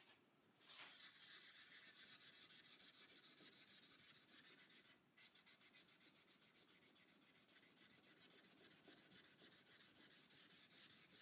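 Wet sanding: abrasive paper on a soft pad rubbed back and forth over a guitar body's waterborne lacquer finish, a hiss in quick, even strokes with a brief pause about five seconds in.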